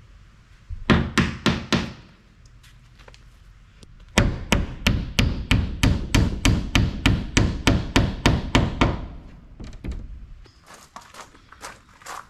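Hammer blows driving nails into wood siding: a short run of about four strikes, then a long steady run of about fifteen strikes at roughly three a second, then a few lighter taps near the end.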